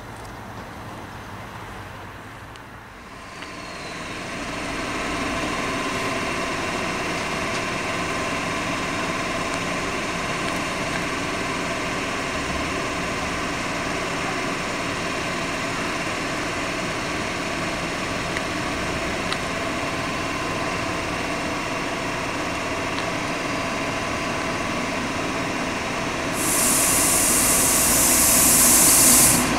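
Steady hum of a standing electric locomotive, with several held tones, rising over the first few seconds and then holding level. Near the end a loud hiss comes in suddenly, lasts about three seconds and cuts off as another train arrives.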